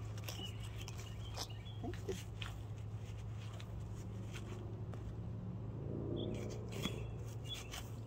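A few faint scrapes and taps of a hand trowel digging into hard, dry garden soil, over a steady low hum.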